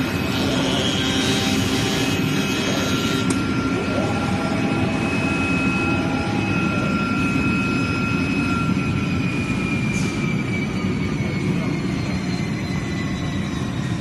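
Oscillating-knife CNC cloth-cutting machine running: a steady, dense rush with thin whining tones over it. In the second half some of the tones slide slowly down in pitch.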